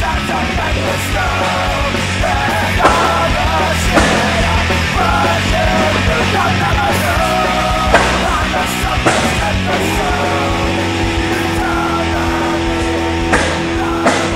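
Loud punk rock song with a singer's voice.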